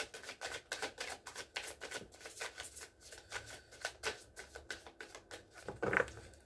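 A deck of tarot cards being shuffled by hand: a quick run of crisp card clicks, about five or six a second. A brief louder sound comes near the end.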